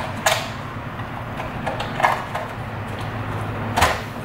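Light plastic clicks and knocks as a trimmed polycarbonate body shell is handled and pressed onto an RC buggy's chassis, a few separate taps over a low steady hum.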